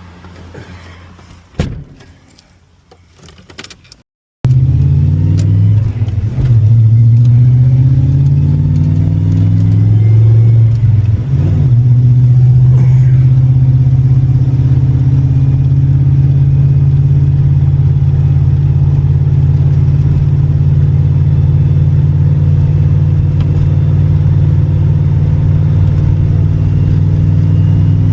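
Holden Commodore VP SS's 5-litre V8 engine pulling the car along after a sudden start a few seconds in. The revs rise through the gears with a short break about eleven seconds in, then the engine runs at steady revs. Before it comes in there is low background noise with a single sharp knock.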